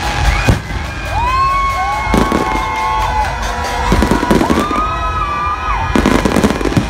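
Aerial fireworks bursting: clusters of bangs and crackling, thickest about two, four and six seconds in, with long held tones sounding over them.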